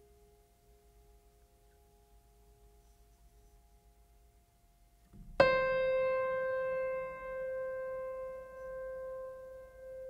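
Ambient background music: faint held tones fade away, then about halfway through a single piano note is struck loudly and rings on, slowly dying away.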